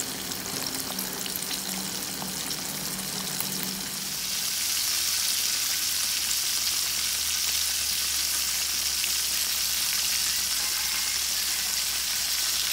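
Flour-coated chicken thighs deep-frying in hot oil in a small wok: a steady sizzle that gets louder about four seconds in.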